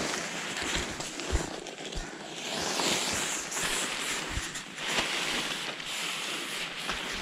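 Nylon tent fabric rustling and swishing as tent poles are pushed through a new tent during pitching, with a few short low thumps.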